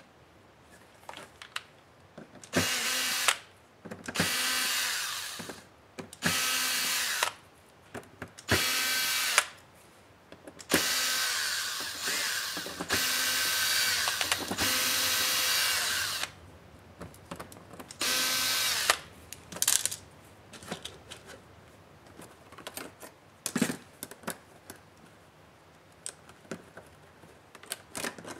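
Cordless electric screwdriver running in short bursts of one to two seconds, with one longer run of about five seconds near the middle, backing out small screws from a laptop's display assembly. Light clicks of parts being handled follow near the end.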